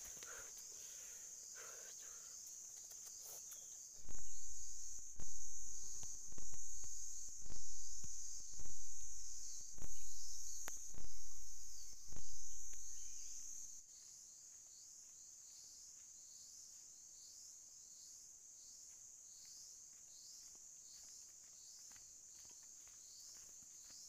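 Steady high buzz of forest insects. From about four seconds in, eight loud low thumps come about one a second, each dying away, and stop near fourteen seconds, leaving the insect buzz alone.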